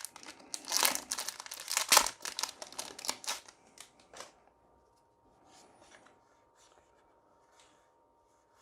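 Foil Magic: The Gathering booster pack wrapper crinkling and tearing open in quick crackles for the first three seconds or so, then dying down to faint, scattered rustles.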